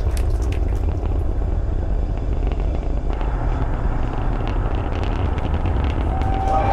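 Falcon Heavy's 27 Merlin 1D engines in flight, a loud, steady low rumble during ascent. Near the end, whistles and cheering begin to rise over it.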